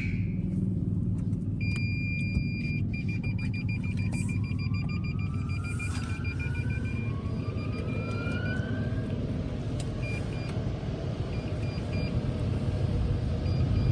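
Steady low rumble of a car heard from inside the cabin. Over it, a run of high electronic beeps lasts several seconds from about two seconds in, and two slow rising tones come partway through.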